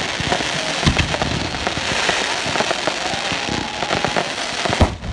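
Fireworks display: a dense, continuous crackle of bursting aerial shells and stars, with louder bangs about a second in and near the end.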